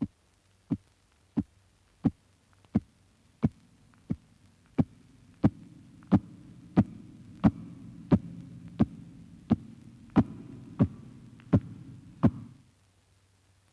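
A steady, heartbeat-like throbbing pulse, about one and a half beats a second. A low hum swells beneath it from about a third of the way in and cuts off suddenly with the pulse shortly before the end.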